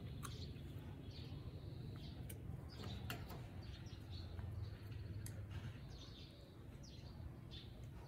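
Baby monkey making many short, high-pitched chirping squeaks, each sliding down in pitch, over a faint low hum.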